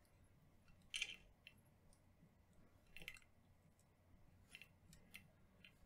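Near silence with a few faint, short clicks of fly-tying tools being handled, the loudest about a second in and another about three seconds in, then three smaller ticks near the end.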